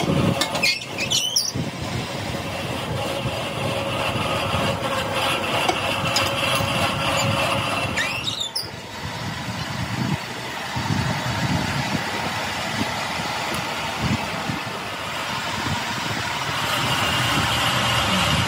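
A machine running steadily with a steady whine, broken twice by a brief sweeping squeal.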